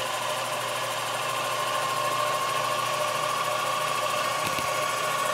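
Sherline mill running, its spindle motor and the stepper-driven rotary table turning the workpiece, giving a steady motor whine that creeps up slightly in pitch over the last few seconds.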